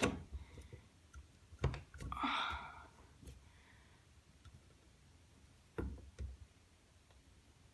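A few small, sharp clicks and knocks from handling a ceiling spotlight fitting as it is pushed and seated in its ceiling hole, spread over several seconds, with a brief soft hiss about two seconds in.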